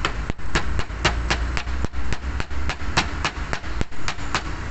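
Hammer striking metal in quick light blows, about four a second, knocking the lock on the steering rack's freshly fitted rack end (inner tie rod) into place to secure it.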